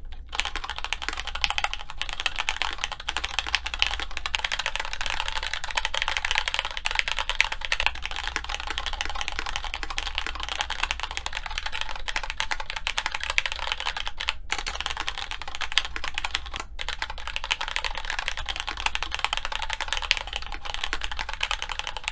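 Continuous fast typing on a plateless Grid600 mechanical keyboard with stock Gateron Yellow linear switches and GMK keycaps, its case damped by two compressed felt pieces, which gives it a deeper sound. The keystrokes run in a dense stream, broken only briefly twice in the middle. Adding the center post partway through makes virtually no difference to the sound.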